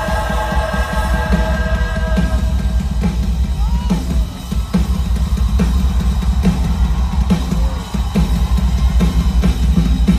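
Live rock band heard through the arena's PA: held chords fade out about two and a half seconds in, leaving a drum kit playing a steady beat with kick and snare.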